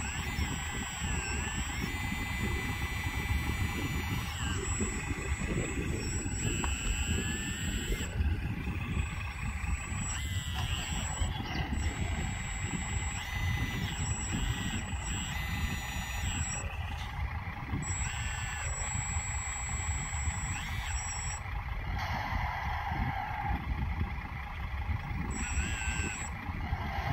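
Hydraulic pump and servos of a 1/16-scale RC excavator whining as the boom and bucket work, the whine starting, stopping and gliding up and down in pitch every second or two, over a steady low rumble.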